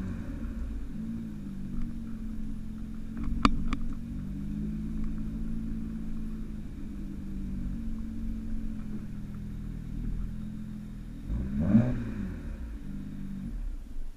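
2008 BMW 335i's twin-turbo straight-six running at low revs through its stock exhaust as the car rolls slowly. A sharp click comes about three and a half seconds in, and the pitch swings briefly near the end. The engine note then stops.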